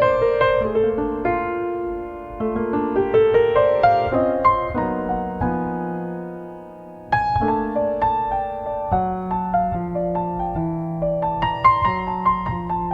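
Solo piano playing a slow, gentle church postlude of melody over held chords. About five seconds in the playing thins to one fading chord, then resumes with a new struck chord a little over a second later.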